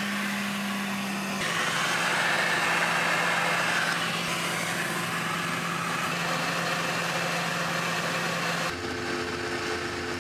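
Airliner cabin noise heard from a window seat: the steady rush of engines and airflow with a constant low hum. The hum shifts a little near the end.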